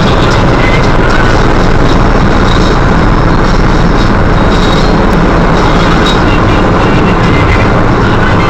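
Citroën Berlingo driving at motorway speed, heard from inside the cabin: a loud, steady drone of engine, tyre and road noise.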